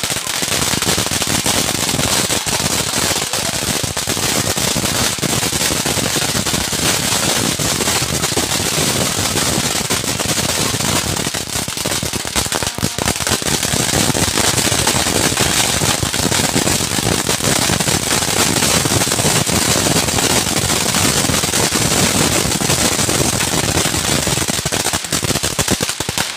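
Ground fireworks, spark fountains and crackling set pieces, going off together: a loud, continuous hiss packed with rapid sharp crackles and pops that never lets up.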